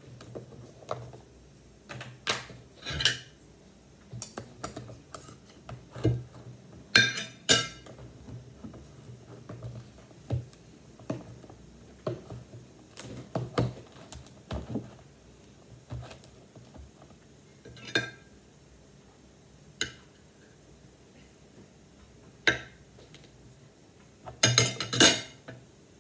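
Metal spoons clinking and scraping on a ceramic dinner plate as ice cream is spooned onto it, with other tableware being handled, in scattered irregular clatters. The loudest clatter comes near the end.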